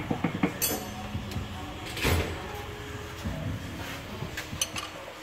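Scattered metal clicks and knocks as the ring gear and carrier of a Ford 8.8 rear differential are handled during removal of the 3.31 gears, with a louder knock about two seconds in.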